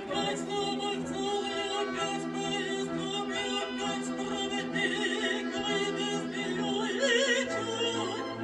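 A female operatic voice sings a sustained melody with wide vibrato over a small ensemble of flute, violin, viola and cello. A lower bass note enters near the end.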